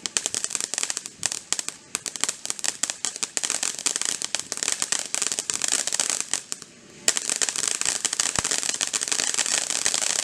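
Consumer fireworks crackling: a dense, rapid run of small pops that breaks off briefly about seven seconds in, then starts again with a sharp crack.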